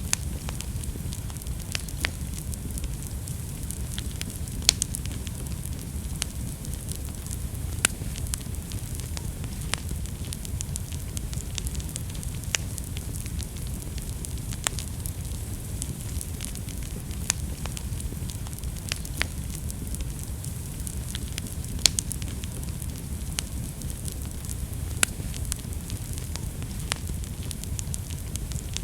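Wood fire burning in a fireplace: a steady low rumble and hiss with frequent small crackles and a louder sharp pop every few seconds.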